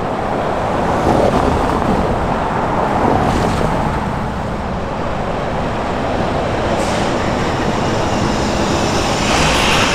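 Road traffic passing close by: a pickup truck, then a car, then a school bus near the end driving past, a steady rush of tyre and engine noise.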